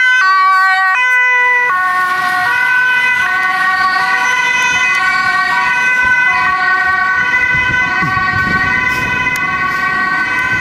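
Dutch ambulance's two-tone siren alternating between a high and a low note, the ambulance driving past and away. Low road noise from a passing vehicle rises near the end.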